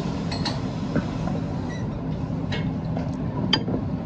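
A few light clinks of a spoon against a plate, the sharpest with a short ring about three and a half seconds in, over a steady low hum of restaurant background noise.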